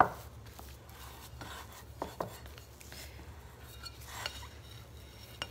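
Spatula stirring and working stiff, pasty corn masa dough in a mixing bowl, with a few short knocks of the spatula against the bowl, a pair about two seconds in and another a little after four seconds.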